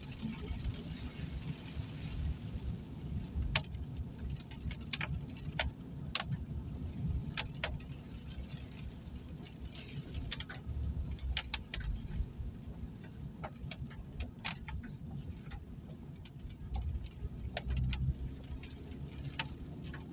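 Steady low rumble of a car's tyres and engine on a wet road, heard from inside the cabin, with scattered sharp ticks of raindrops striking the windscreen at irregular intervals.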